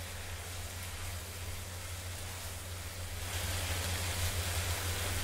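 Chopped carrots, green beans and tomato sizzling in a nonstick pan as a wooden spoon stirs them, cooking down in a little water into a thick gravy. A steady hiss that grows a little louder about three seconds in, over a steady low hum.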